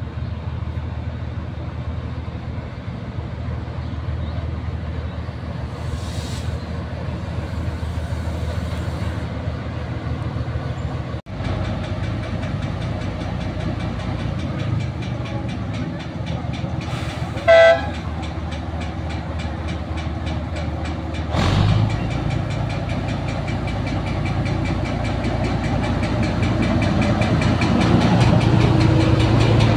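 TU2 narrow-gauge diesel locomotive running with its diesel engine, growing louder as it draws close and passes. One short horn blast a little over halfway through.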